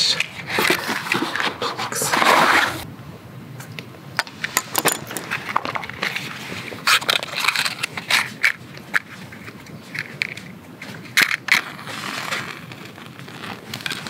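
Cardboard matchboxes handled and rustled, then a series of short, sharp scrapes as a match is struck against a matchbox's striking strip to light a fire starter on a split log.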